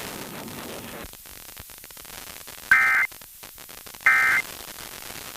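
Radio static hiss, broken by two short, shrill data bursts about a second and a half apart, with a third beginning at the very end: the EAS/SAME digital end-of-message tones that close an emergency alert broadcast.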